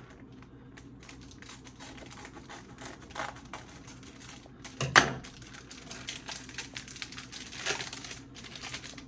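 A cardboard box and its packaging being opened by hand: a quick run of small clicks, scrapes and rustles, with one sharp knock about five seconds in.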